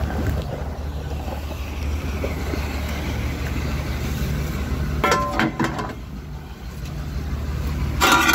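Flatbed tow truck's engine running with a steady low drone while a pickup is loaded onto its deck. Short higher-pitched sounds come about five seconds in and again near the end.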